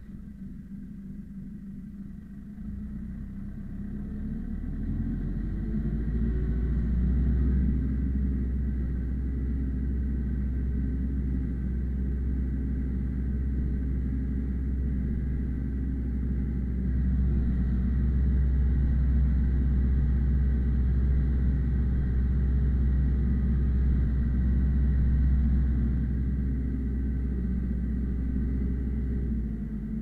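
Ursus C-355 tractor's four-cylinder diesel engine, heard from inside the cab, pulling a two-furrow plough through hard ground. Its note rises and grows louder over the first several seconds, then holds steady and loud under load, easing slightly near the end.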